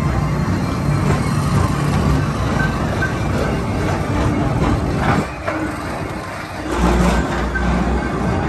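PeopleMover tram car running along its elevated track, a continuous vehicle rumble and noise. A heavier deep rumble comes in about two-thirds of the way through.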